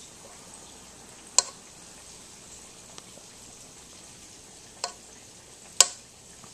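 A utensil knocks sharply three times against a stainless steel mixing bowl as cream cheese is scraped off it into the potatoes, the third knock the loudest, over a steady background hiss.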